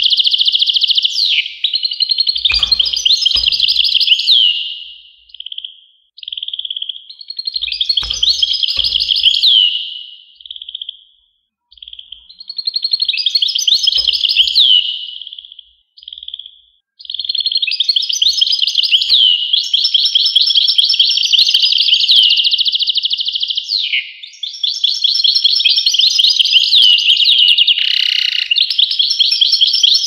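European goldfinch singing: long runs of fast, tinkling, twittering song, broken by a few brief pauses.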